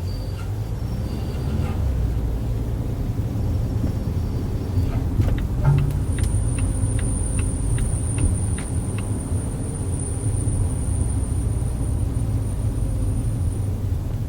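Volvo V60 driving, heard from inside the cabin: steady road and drivetrain rumble. About five seconds in, a run of sharp clicks, two or three a second, lasts about four seconds.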